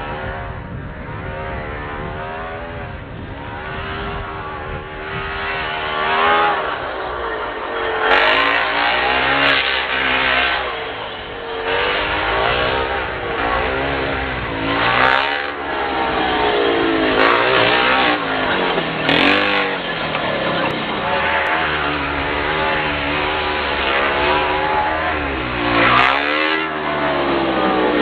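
Two-stroke 30.5cc OBR engine with a Bartolone tuned pipe in a Losi 5ive-T 1/5-scale RC truck, revving up and down again and again as it is driven off-road, with a few short sharp hits scattered through.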